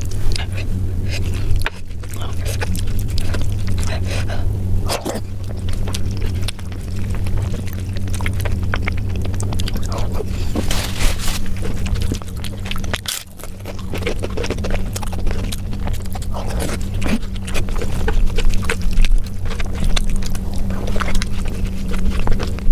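Close-miked eating sounds: chewing and food being handled and scraped, with many small clicks over a steady low hum.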